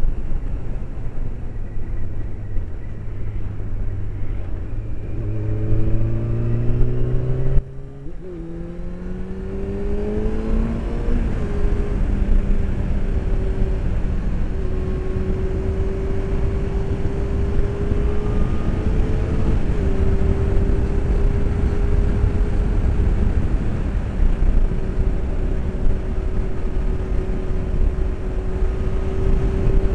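Honda CBR600's inline-four engine heard from inside the rider's helmet over heavy wind rumble. The revs climb under acceleration, drop suddenly at a gear change about eight seconds in, climb again, then hold a steady note at cruising speed.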